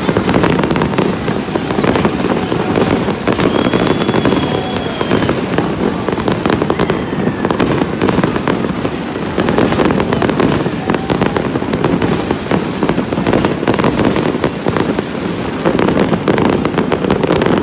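Fireworks display going off in quick succession: a continuous barrage of bangs and crackles from aerial shells bursting overhead.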